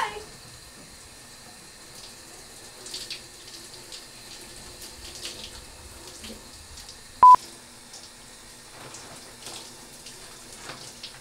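Shower water running steadily, with small faint splashes. About seven seconds in, a short, loud electronic beep sounds once.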